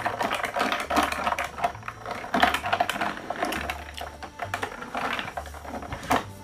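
Ice and a metal spoon clinking and rattling against a stemmed glass of iced plum soda, stirred hard and fast.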